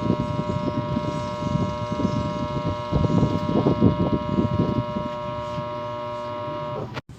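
Washing machine spin motor humming without turning, the typical sign of a failed motor-start capacitor. The steady electrical hum cuts off abruptly near the end, over irregular low rumbling.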